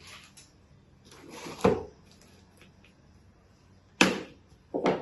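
Cardboard box being forced open with a screwdriver: the blade stabbing through the packing tape and the cardboard tearing. There is a scraping rip ending in a sharp crack about a second and a half in, a sudden loud rip at about four seconds, and a shorter one just before the end.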